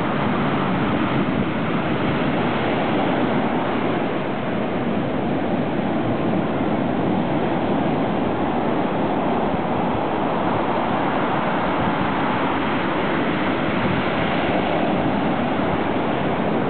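Heavy surf breaking and washing up the beach: a steady, unbroken rush of white water.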